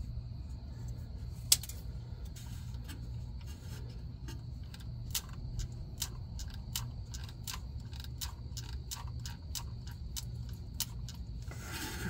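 Irregular small plastic clicks and ticks from a heated, adhesive-stuck electrical connector plug on a GM neutral safety switch being wiggled loose by hand. There is one sharper click about a second and a half in, and the clicks come thicker in the second half, over a steady low hum.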